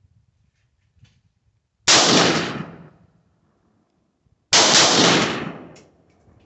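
Two single shots from an AR-15-style .223 rifle, about two and a half seconds apart, each trailing off over about a second.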